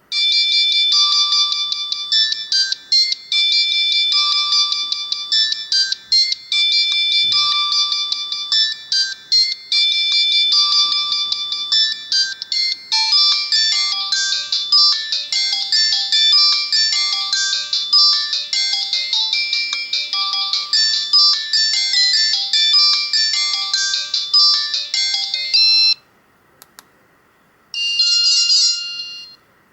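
An Alcatel 2000X ringtone played on an Alcatel 1054D phone's built-in MIDI synthesizer, which the uploader calls pretty bad. It is a synthesized melody of short, high beeping notes. Extra accompaniment notes join about halfway through, and the tune stops about 26 seconds in. A brief snatch of another ringtone follows near the end.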